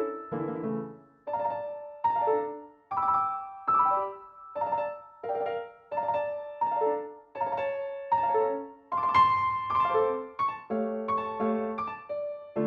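Upbeat electronic background music: a piano-like keyboard melody of short notes that each fade quickly, about two a second, thickening into chords near the end.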